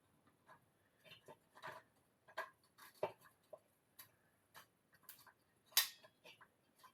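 Hand tools clicking and scraping on the small metal fittings of a patio gas heater's burner assembly as it is taken apart: a dozen or so irregular light clicks and taps, with one longer, louder scrape about six seconds in.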